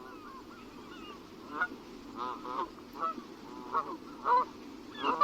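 Geese honking, several birds calling over one another; the calls are faint at first and grow louder and more frequent from about a second and a half in.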